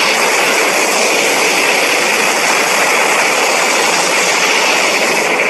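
Edited Godzilla Ultima monster sound effect: a loud, steady rushing hiss like a jet, with no clear pitch and no change in level.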